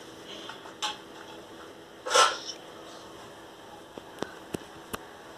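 A short, loud burst of breath close to the microphone about two seconds in, with a fainter one about a second in, then a few faint clicks near the end.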